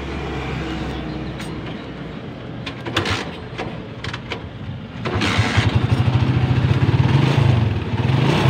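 Honda tricycle motorcycle engine idling, then revved hard about five seconds in and held up, picking up without hesitation with a fuel-saver freshly fitted to its air filter. A few light clicks sound during the idle.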